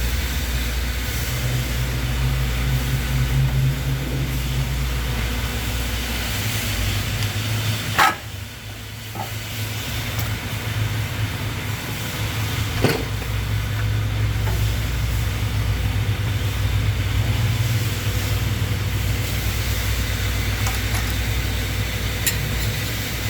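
Milwaukee Sawzall reciprocating saw running, cutting through metal. It stops briefly about eight seconds in after a sharp clack, then runs on, with another clack a few seconds later.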